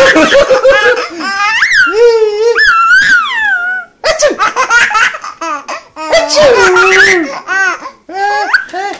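A baby boy under a year old laughing hard from the belly, in several high-pitched bouts with short breaks between them.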